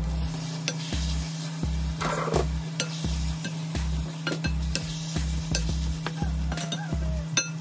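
A spatula stirring and scraping through minced meat, potato and aubergine in a pan, with light sizzling. Background music with a steady low beat runs underneath.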